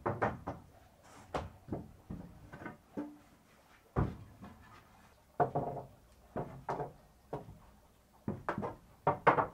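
Wooden bed slats being handled and laid into a wooden bed frame: irregular knocks and clatters of wood on wood, some in quick clusters.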